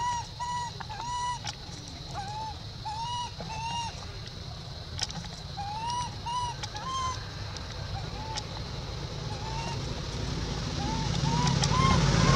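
Baby macaque giving short, arching whimper calls over and over, several a second in runs, thinning out after the middle. A low motor-vehicle engine hum underneath grows louder near the end.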